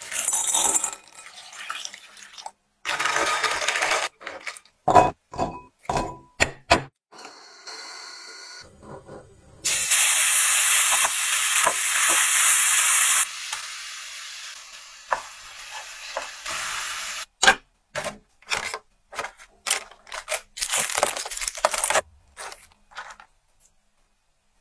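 A run of close-up kitchen sounds: clicks and knocks of utensils on bowls and pans. About ten seconds in comes a few seconds of chopped garlic and chili sizzling in hot oil, stirred with a wooden spatula, followed by more short taps and scrapes.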